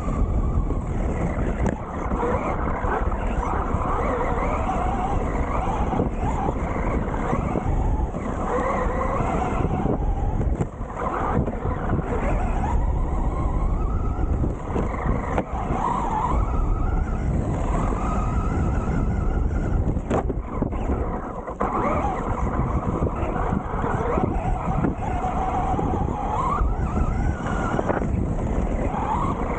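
Traxxas Rustler RC car's electric motor whining, its pitch rising and falling again and again as the throttle is worked, over a constant low rumble.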